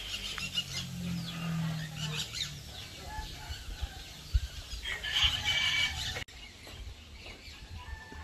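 Outdoor ambience with birds calling, and one louder call lasting about a second around five seconds in. The background drops suddenly at a cut about six seconds in.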